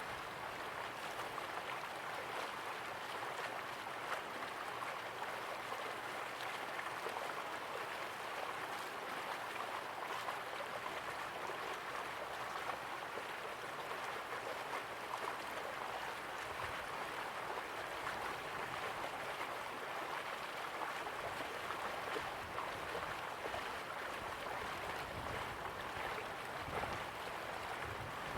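A slow-flowing river running steadily: an even, unbroken rush of water.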